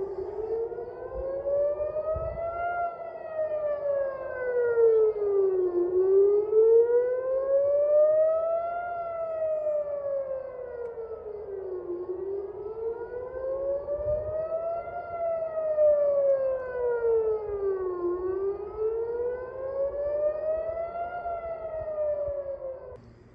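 Civil-defence rocket warning siren wailing, rising and falling in pitch about every six seconds, then cutting off near the end. The siren warns of incoming rocket fire.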